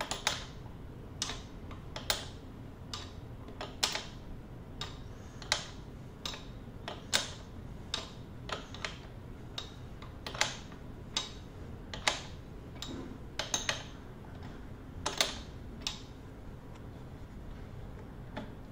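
Open-end wrench clicking on the spindle of an electric bike's pedal as it is refitted and turned, stroke by stroke, to unscrew the right pedal: a string of sharp metal clicks, irregularly spaced at roughly one or two a second.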